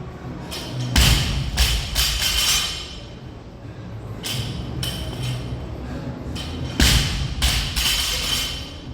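A loaded barbell dropped on the gym floor twice, about six seconds apart. Each drop is a heavy thud followed by a few quicker, lighter bounces. Music plays underneath.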